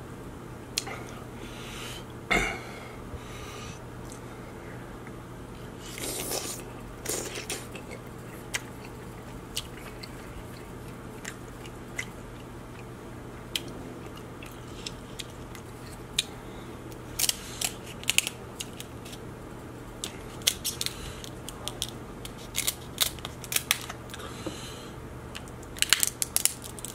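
Close-up eating of king crab legs in seafood-boil sauce: chewing, with scattered sharp cracks and clicks as the crab shell is broken apart by hand, thickest about two-thirds through and again near the end.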